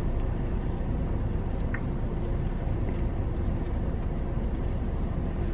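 Steady low rumble of a car's engine and cabin noise heard from inside the car, with a faint tick or two.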